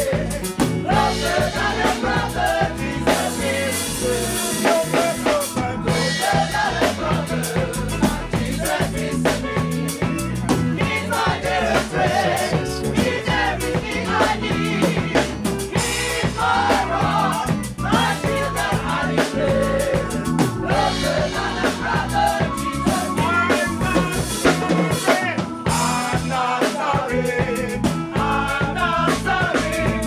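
Gospel choir singing with a live band, the drum kit and bass keeping a steady beat under the voices.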